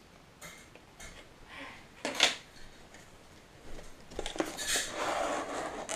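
A CPU cooler being handled in its plastic packaging tray: a sharp click about two seconds in, then rustling and scraping of plastic through the last two seconds.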